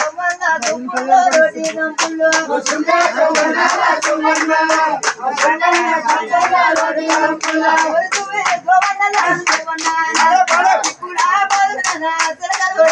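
A group clapping hands in a steady rhythm, about three claps a second, with people singing a chant over the claps.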